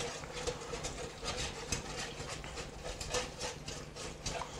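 A utensil stirring double cream into the cooking juices in a tray: a run of faint, irregular clicks and scrapes against the tray. A faint steady hum sits underneath.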